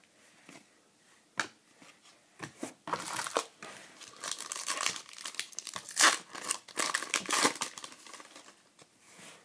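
A few light clicks, then a foil trading-card pack wrapper being torn open and crinkled by hand, starting about three seconds in and lasting some five seconds in uneven bursts.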